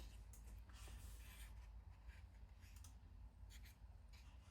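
Faint rubbing and scraping of hands handling a watchmaker's depthing tool and its loose centers, in a few short patches over a low steady hum.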